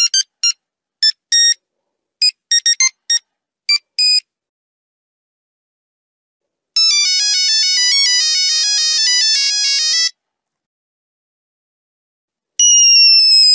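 Monophonic Nokia 3315 ringtones playing as electronic beeping tunes. First comes a tune of short separate beeps. After a pause there is a fast run of rapid notes lasting about three seconds, and after another pause a held tone begins that slides slightly down in pitch.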